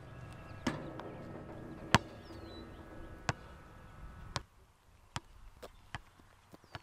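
About eight sharp knocks at uneven intervals, the loudest about two seconds in, over a low outdoor background.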